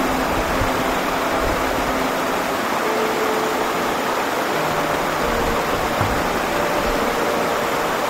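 Small waterfall, about two metres high, plunging into a pool: a steady, unbroken rush of falling and splashing water.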